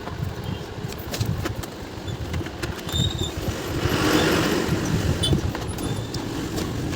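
Screws being unscrewed from the plastic base of a mixer grinder: scattered small clicks and scrapes over a low steady hum, with a broad rushing noise swelling and fading around the middle.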